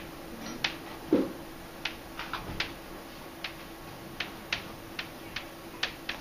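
Chalk tapping and clicking on a chalkboard as words are written: a run of short, irregular clicks, about two a second, with one duller knock about a second in.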